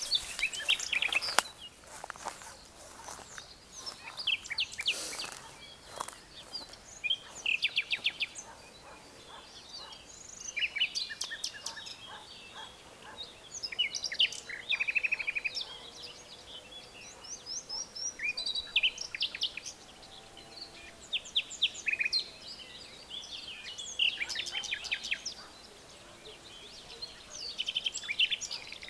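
Several birds calling and singing: bursts of high chirps and quick trills every few seconds, over a faint steady outdoor hiss.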